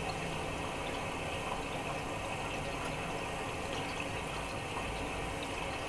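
Miele washing machine filling with water for the first rinse: a steady rush of water running into the drum.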